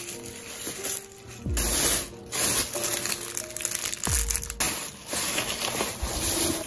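Thin plastic carrier bag rustling and crinkling in bursts as hands open it and pull out a cellophane-wrapped snack and a cardboard takeaway box. Soft background music with a deep, slow beat plays underneath.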